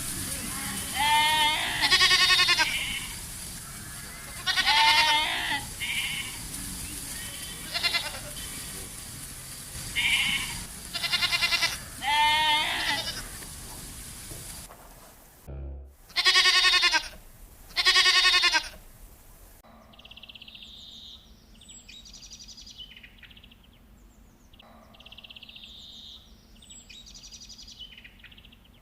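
Goats bleating repeatedly, each call a loud, quavering bleat. After a cut about two-thirds of the way through, they give way to quieter, short high-pitched chirping calls.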